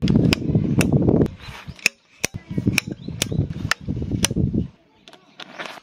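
Tent pegs being hammered into the ground: about eight sharp strikes, roughly two a second, with a short pause near two seconds in. A loud low rumbling noise runs under the strikes and stops shortly before the end.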